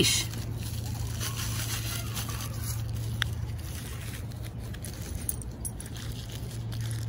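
Thin plastic dog-waste bag crinkling as it is pulled from a handheld dispenser and unrolled, with a few light clicks from the leash and dispenser, over a steady low hum.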